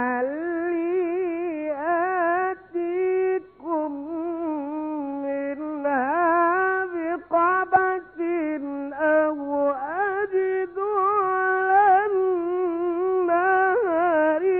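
A male Quran reciter chanting unaccompanied in the melodic, ornamented tajweed style: one voice holding long notes with quick wavering turns in pitch, broken by a few short pauses for breath.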